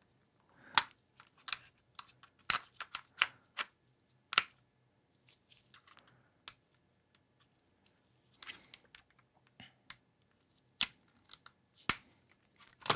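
Scattered clicks of keys being pressed on a computer keyboard, singly and in short clusters with pauses of a second or more between them. The keyboard has stopped working after being blown out with compressed air.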